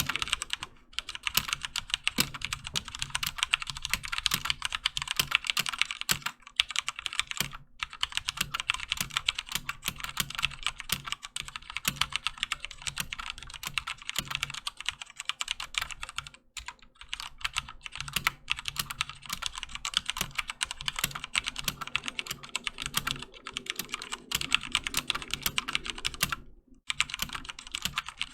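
Continuous fast typing on a HyperX Alloy FPS Pro mechanical keyboard with linear Cherry MX Red switches: rapid clacking keystrokes with a few short pauses, the longest about 26 seconds in.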